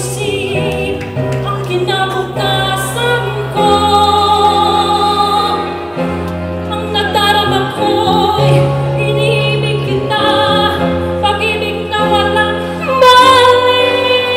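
A woman singing solo into a microphone over an instrumental backing, with sustained low notes that change every second or two beneath the melody.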